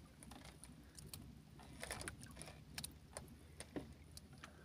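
Faint scattered clicks and light handling noise of fishing line being drawn in by hand over the side of a small outrigger boat, over a low steady rumble.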